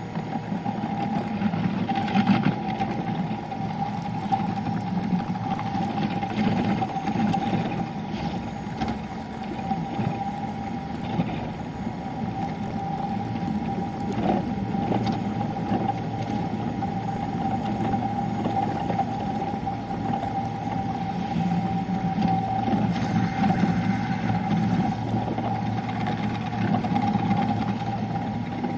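Sunrise Seto sleeper train running, heard inside the compartment: a steady low rumble under a constant hum. Now and then there are soft rustles and creases of origami paper being folded.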